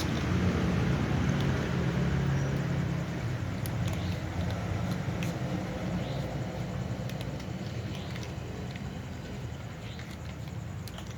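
Cats eating, with faint, irregular crunching clicks over a low steady rumble in the background.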